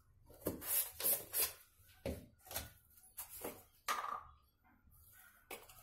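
Spice containers and a measuring spoon being handled while mixing masala: a run of short clicks, knocks and scrapes as plastic jars and lids are picked up, closed and set down, over about four seconds.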